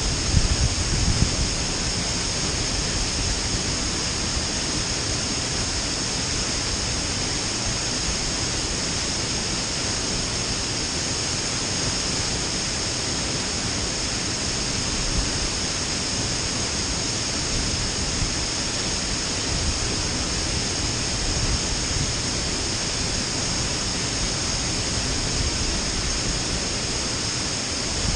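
Waterfall pouring steadily: a dense, even rush of falling water with no let-up. There are a few low bumps in the first second or so.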